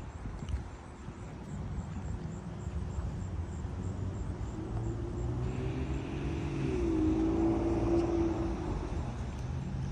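Low steady engine rumble with a droning engine tone that swells, drops in pitch about seven seconds in and fades, as of a vehicle passing.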